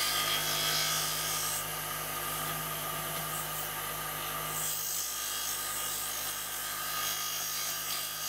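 Scroll saw running, its reciprocating blade cutting through a thick tape-wrapped wooden block: a steady motor hum under the blade's fast rasping.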